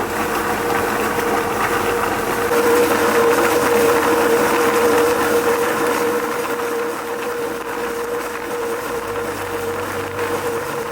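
A machine running steadily, with a constant mid-pitched hum over a broad whir; it swells a couple of seconds in and then holds.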